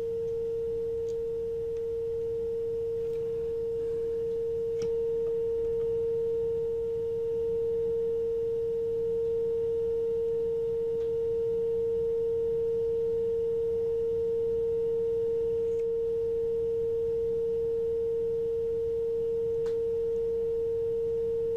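Steady single-pitch test tone from a valve radio's speaker as the set reproduces a modulated signal generator at 455 kHz, while its IF transformer slugs are tuned for peak output; the tone gets slightly louder about five seconds in.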